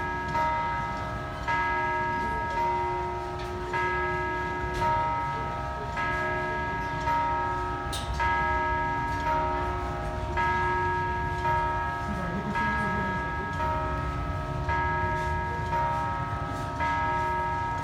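Church bells of Giotto's Campanile ringing a peal, struck about once a second, each note ringing on into the next.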